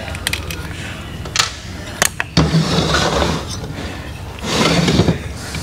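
Hand tools and metal parts clicking and clinking against a Harley-Davidson Twin Cam 110 engine being stripped down, with a few sharp clicks in the first two seconds and two longer scraping, rustling stretches after that. A steady low hum runs underneath.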